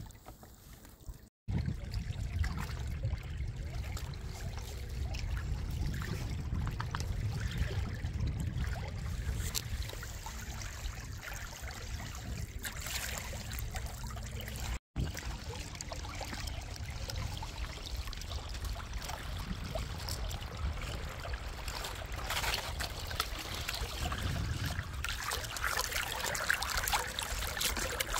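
Water rushing and splashing along the hull of a small sailboat under sail, over a steady low rumble. The splashing grows louder and brighter in the last few seconds, and the sound cuts out for an instant twice.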